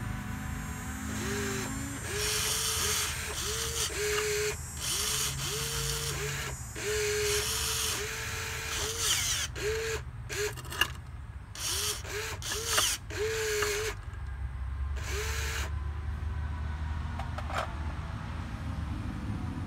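Geared electric motors of a Wltoys 16800 RC excavator whining in quick short bursts, one after another, as the boom, arm and bucket are worked. Each burst rises quickly in pitch, then holds, and there are a couple of sharp clicks among them. Near the end the bursts stop and a low steady hum carries on.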